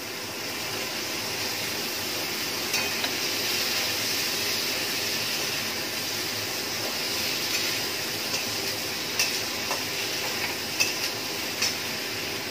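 Chopped vegetables sizzling steadily in hot oil in a metal kadai, just added on top of a panch phoron and green-chilli tempering. A metal spatula clinks against the pan a few times as they are stirred.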